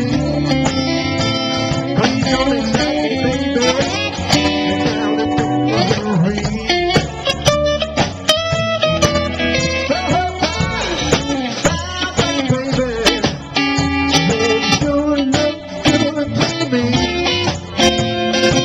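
Live band playing 1950s-style rock and roll on electric guitars, upright double bass and drum kit.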